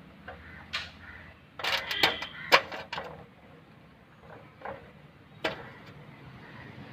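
Scattered light clicks and knocks of small metal parts being handled and seated while a power steering pump is reassembled, with a quick run of clicks about two to three seconds in.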